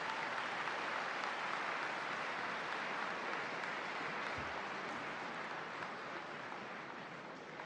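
Large audience applauding, swelling in at once and then slowly dying away.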